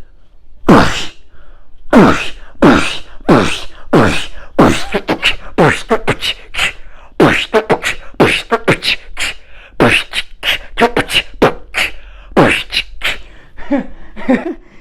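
A man sneezing over and over in a quick rhythm, the sneezes strung together into vocal beatboxing. Each burst is sharp and drops in pitch, coming about twice a second at first and then faster and in clusters.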